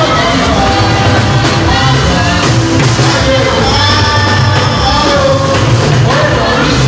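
Live gospel praise music played loud: a singer on a microphone over an electronic keyboard and a drum kit.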